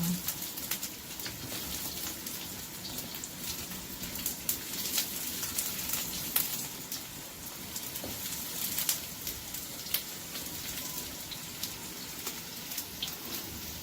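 Ginger and garlic sizzling in hot oil in a pan: a steady crackle with scattered sharp pops.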